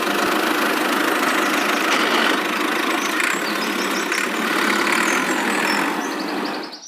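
Mini tractor engine running steadily, then cutting off just before the end.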